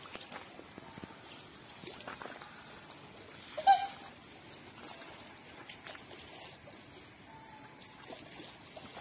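Faint background noise broken, a little before halfway through, by one short, loud call from a waterfowl on the water.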